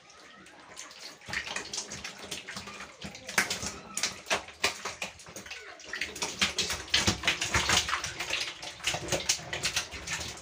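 Live lele catfish thrashing and writhing in shallow water in a tub: a dense, irregular patter of wet slaps and splashes that starts about a second in and grows busier and louder about six seconds in.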